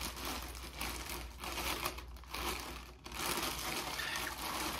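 Clear plastic bag crinkling and rustling as it is handled and pulled off a ceramic wax warmer.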